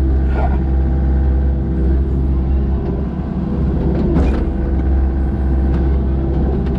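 Kobelco SK55SRX-6E mini excavator's diesel engine running steadily under load while digging.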